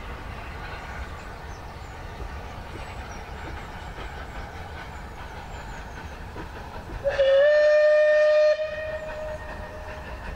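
A train running over a brick viaduct gives a steady distant rumble. About seven seconds in, a steam locomotive whistle sounds one loud blast on a single pitch, sliding up slightly as it starts. It holds for about a second and a half, then trails off fainter for another second or so.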